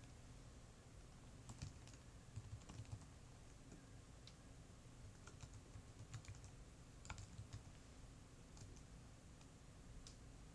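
Faint typing on a computer keyboard: scattered key clicks coming in small irregular bunches.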